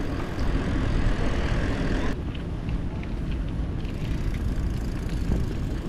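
Wind buffeting a camera microphone mounted on a moving bicycle, with tyre rumble on pavement. The sound changes abruptly about two seconds in, where the hiss drops away and leaves the low rumble and a few faint ticks.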